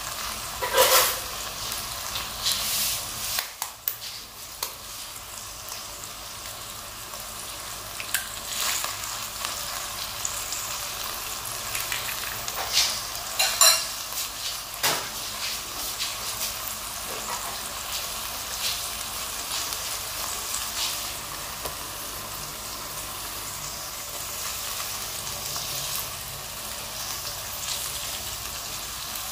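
Food frying and sizzling in a pan with a steady hiss, stirred with a utensil that scrapes and clinks against the pan several times, loudest about a second in and again about halfway through.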